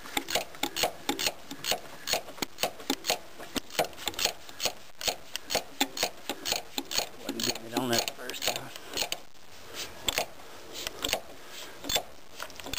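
Ratchet wrench with a 1 1/8-inch socket clicking in a steady run of quick, even clicks as it is worked back and forth, snugging down the fuel filter housing cap on a 5.9 Cummins diesel.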